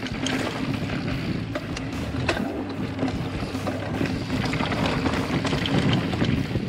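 A full-suspension mountain bike (2019 Specialized Enduro Elite 29er) rolls fast down a rocky dirt trail. Tyres rumble steadily over the dirt, and the bike clatters and clicks sharply as it runs over stones.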